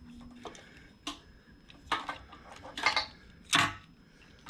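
Sharp clicks and clatter of parts being twisted and worked loose as the float assembly is pulled from a Harley fuel pump assembly: four or five separate knocks, the loudest about three and a half seconds in.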